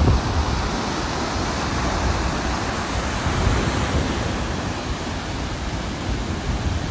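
Waves breaking and washing in choppy, whitecapped surf: a steady rush of noise, with wind rumbling on the microphone.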